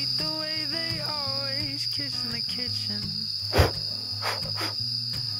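Crickets chirring steadily in the autumn night, one sustained high trill, with a single sharp click about three and a half seconds in.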